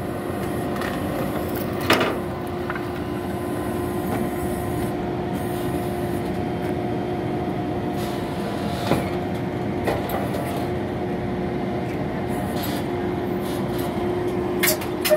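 Flatbed tow truck running its hydraulics and winch to pull a car up the tilted bed: a steady mechanical hum holding two pitches, broken by a few sharp metallic clanks, the first about two seconds in and two more near the middle.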